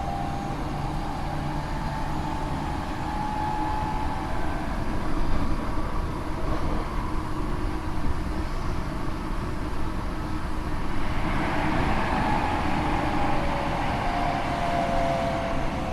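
Tokyo Metro 8000 series car 8212 running, heard from inside the car: the whine of its Mitsubishi IGBT VVVF traction drive over wheel and rail rumble. The motor tone is muddy, the sign of this car's abnormal running noise. About eleven seconds in, a rushing noise swells and the motor tones slide down in pitch.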